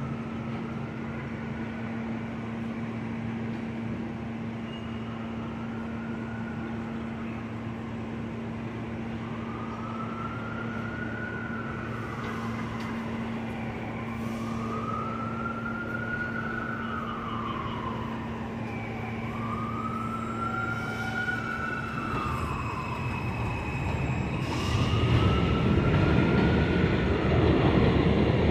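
An emergency vehicle's siren wailing, its pitch sweeping slowly up and down about every four seconds and growing stronger midway. A train's rumble swells over the last few seconds, becoming louder than the siren.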